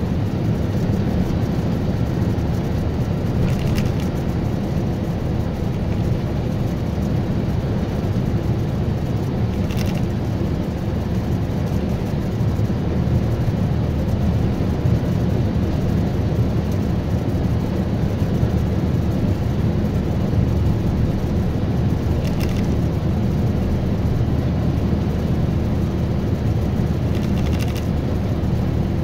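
Steady low rumble of engine and tyre noise inside a vehicle's cabin, cruising at highway speed on an expressway.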